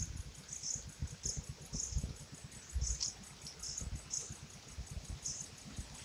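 Insects chirping in short high-pitched pulses, about one a second, over an uneven low rumble on the microphone.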